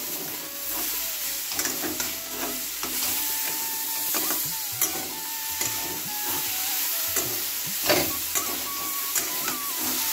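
Potato and vegetable pieces frying in oil in a steel kadai, sizzling steadily, while a metal spatula stirs them, scraping and clicking against the pan. The sharpest clink comes a little before the end.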